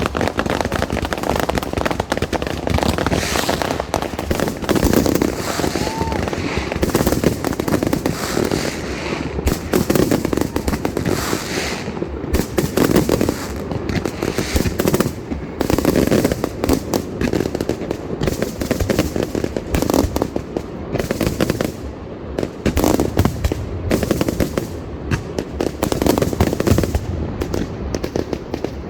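Fireworks display in full barrage: a continuous, rapid crackle of bursts and reports with no break.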